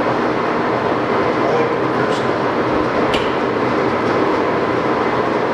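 Sidney 18-inch engine lathe with a herringbone-geared headstock running steadily, its carriage power feed engaged. Two sharp clicks come about two and three seconds in as the feed is shifted to reverse the carriage.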